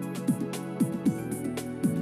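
Background music with a steady beat: held synth tones over repeated falling bass-drum hits.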